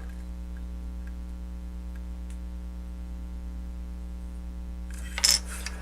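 Plastic parts of a robot toy figure being handled, giving a few faint clicks and a short, louder clatter about five seconds in, over a steady low electrical hum.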